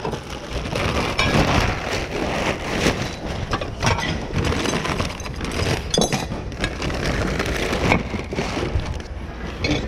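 Paper crinkling and rustling as a breakable item is wrapped, with light clinks of the pieces being handled.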